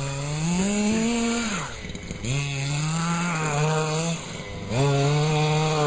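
Small engine of a miniature car revving in three bursts of throttle. The first climbs in pitch and drops away, and the next two hold a steady note.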